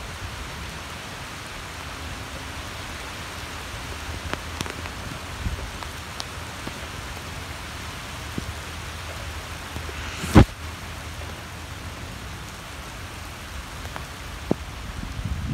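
Steady rain falling in a sun shower, an even hiss with scattered faint drop ticks. One sharp, loud tap about ten seconds in stands out above the rain.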